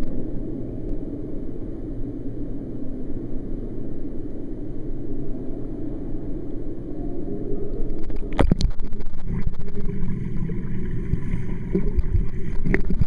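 Pool water heard through a camera at the waterline: a muffled low rumble, then from about eight seconds in, splashing and sharp knocks as a swimmer's arm strokes come close and pass the camera.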